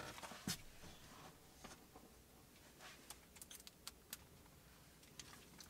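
Near silence with a few faint small clicks and ticks, one about half a second in and a cluster about three to four seconds in: small parts being handled by hand.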